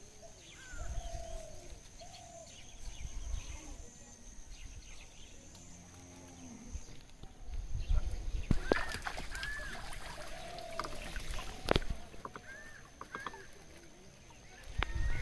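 Rural outdoor sounds: birds calling in short rising-and-falling chirps throughout, a low mooing call from cattle about halfway through, and two sharp knocks in the second half. A steady high tone runs through the first half and then stops.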